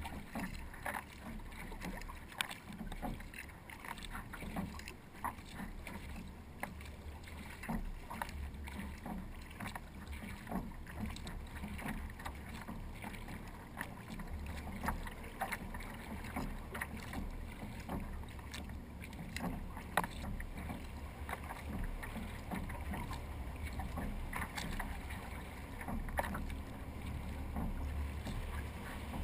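Water splashing and lapping against the hull of a paddled kayak, with many small irregular drips and splashes over a low rumble of wind on the microphone.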